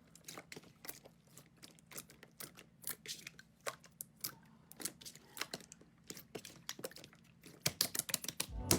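Slime being pressed and handled, making a run of small, irregular clicking and popping sounds that come thicker and louder in the last second. Music comes in right at the end.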